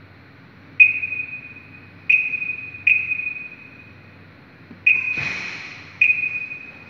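Fire alarm control panel keypad beeping as its buttons are pressed, five short single-pitch beeps at uneven intervals, each fading quickly, while a detector allocation is keyed in. A brief rustling noise comes just after the fourth beep.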